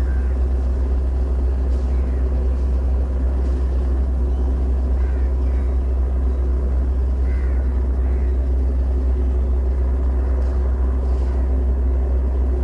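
A steady, loud low rumble with a constant hum above it that does not change, and a few faint chirps.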